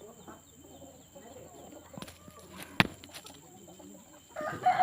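Faint calls of backyard chickens and doves, with one sharp click a little under three seconds in.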